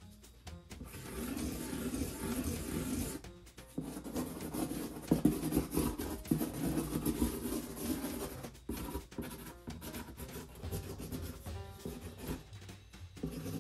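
Felt-tip marker drawing on a cardboard box, its tip rubbing and scratching across the surface in runs of strokes with short pauses.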